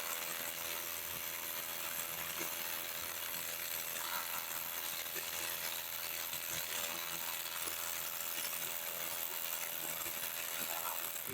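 Makita DHR183 18V SDS rotary hammer drilling a 10 mm hole into concrete through a Bosch Speed Clean hollow vacuum bit, with a Milwaukee M18CV cordless vacuum running steadily on the bit to pull the dust away. The vacuum's motor whine holds a steady pitch over a constant hiss.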